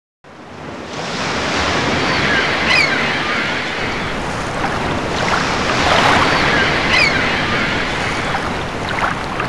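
Steady rush of water fading in over the first second, with a short high chirp about three seconds in and again about seven seconds in. It cuts off suddenly at the end.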